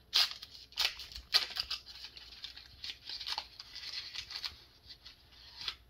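Candy bar's wrapper being torn open: a few sharp rips in the first second and a half, then steady crinkling of the wrapper that stops near the end.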